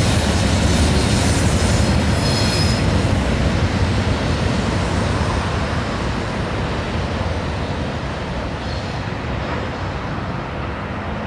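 Rolling noise of a Norfolk Southern mixed freight train's last cars going away, a steady rumble that slowly fades as the train recedes. A brief high wheel squeal comes about two to three seconds in.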